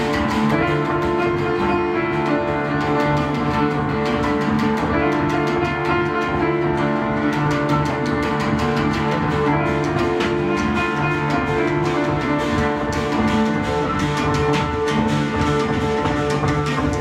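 Live ensemble music led by an oud, plucked in fast repeated notes over steady held tones from the other instruments.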